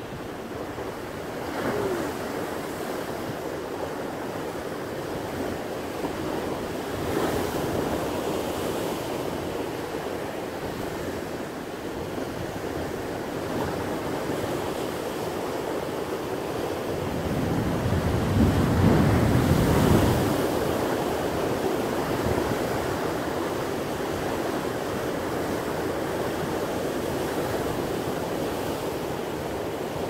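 Heavy sea surf breaking and washing over rocks in a steady rush of white water, swelling in surges, the loudest a little past halfway.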